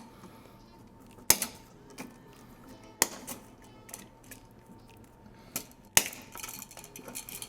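Wire cutters snipping the house wiring off an old light switch's push-in terminals: three sharp snips, with fainter clicks and handling sounds between.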